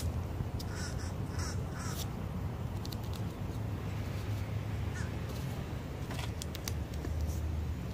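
A crow cawing several times in quick succession in the first two seconds, over a steady low hum, with a few faint clicks later.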